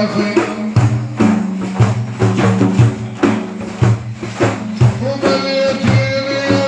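Arabic song accompaniment: tambourine-like frame-drum hits keeping a steady beat under a held melodic line, with no clear singing.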